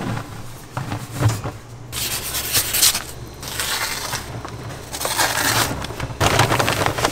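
Flour poured from a paper sack into a stainless-steel mixer bowl: the sack's paper rustles and the flour hisses down in several surges, over a low steady hum.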